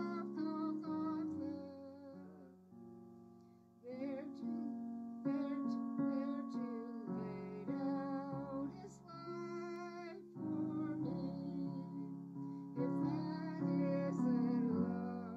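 A hymn sung by an elderly woman with piano accompaniment, her voice wavering in vibrato over held piano chords.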